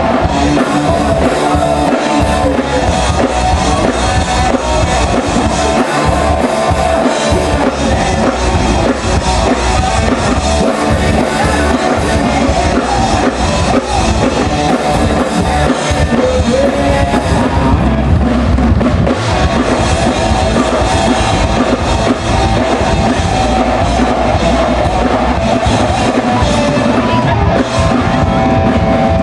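Live rock band playing loud, with electric guitar, electric bass and a drum kit.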